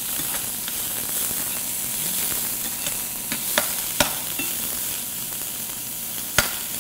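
Chopped red onion sizzling in hot oil in a stainless steel frying pan as it is sautéed toward caramelizing, stirred with a metal slotted spoon. A few sharp clicks of the spoon against the pan stand out in the second half.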